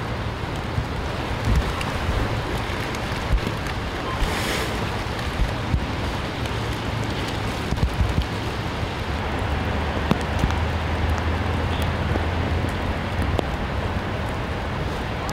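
Steady wind rushing and buffeting the microphone outdoors during a snow flurry, with a low rumble and a brief louder gust about four seconds in. A few faint knocks sound through it.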